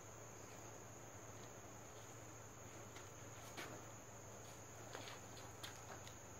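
Faint, steady high-pitched chirring of insects, with a few faint clicks in the second half.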